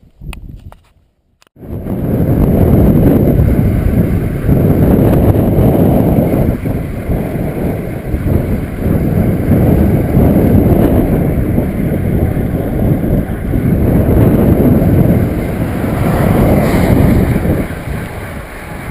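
Wind buffeting the microphone of a camera carried on a moving bicycle, a loud rumbling that rises and falls in gusts, starting abruptly about a second and a half in.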